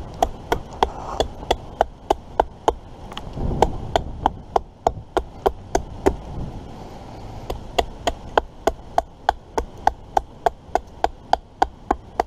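Quick, light chopping strikes on wood, about four a second, in runs broken by two short pauses.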